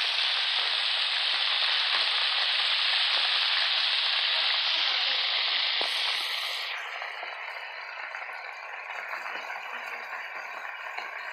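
Breaded crappie deep-frying in a wire basket in hot peanut oil: a dense, steady sizzle that turns quieter and duller about six and a half seconds in.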